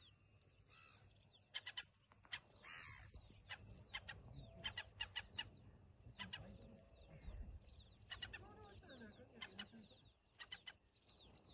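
Faint birdsong in open marsh grassland: clusters of short, sharp chipping calls repeated every second or two, with a softer wavering call about three seconds in.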